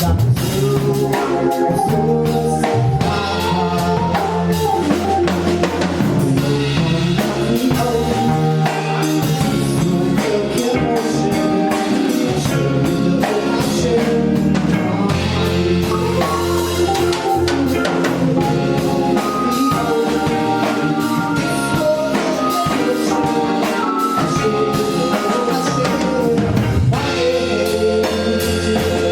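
A band playing music, with a drum kit keeping a steady beat under held bass and chord notes.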